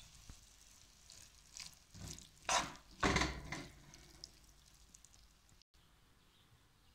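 A spoon stirring and scraping through fried beef cubes in a pan as yogurt is mixed in: a few short scrapes between about one and four seconds in.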